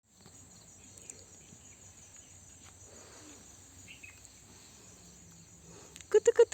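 Insects chirring faintly and steadily in a high, thin band. Near the end a loud, rapid run of short pitched calls starts, about seven a second.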